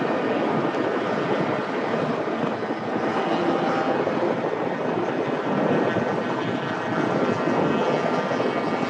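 Wind rushing over a motorcycle-mounted microphone at highway speed, with the steady drone of motorcycle engines underneath.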